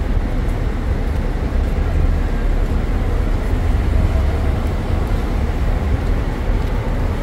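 Steady city street traffic noise: cars passing on the road, with a heavy low rumble underneath.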